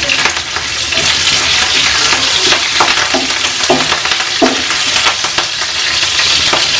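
Hot oil sizzling and crackling in a nonstick frying pan as freshly added curry leaves, crushed garlic and dried chillies fry for a tempering. A wooden spatula stirs and scrapes the pan partway through.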